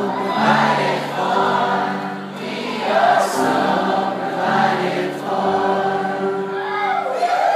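Live band with several voices singing together in long, held notes.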